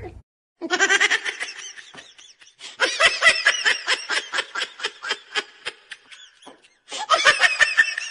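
Laughter in three bursts of quick, high-pitched, repeated 'ha' pulses, the longest in the middle.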